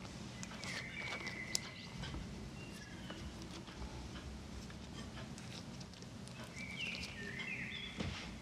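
Kitchen handling sounds while preparing food: scattered clicks and taps of utensils with a few short squeaks, about a second in and again near the end, over a steady low hum.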